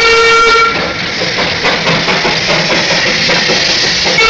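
Darjeeling Himalayan Railway steam locomotive's steam whistle sounding, cutting off under a second in, followed by a steady hiss of steam; the whistle starts again at the very end.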